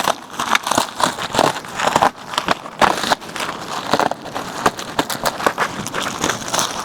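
Packing material around a boxed electric bike being pulled open and handled: irregular crinkling and crackling rustles.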